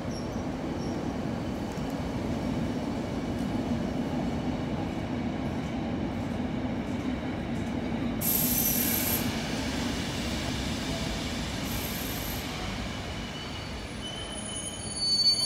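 SNCB class AM75 (S32) electric multiple unit running past along an underground platform, a steady low rumble of wheels and running gear. A short hiss about eight seconds in, and wheels squealing near the end.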